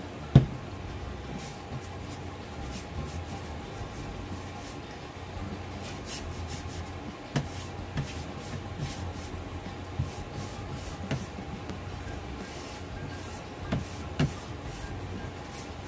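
Flat paintbrush stroking white paint across a wooden board: a run of short, soft swishes, with light knocks now and then. A sharp knock about half a second in, as the plastic paint jar is set down on the table.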